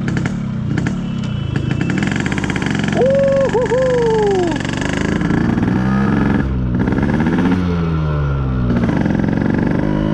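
Yamaha RX100's 98 cc two-stroke single-cylinder engine running on the move, its revs rising and falling repeatedly as the bike is ridden. A short wavering tone sounds over it about three seconds in.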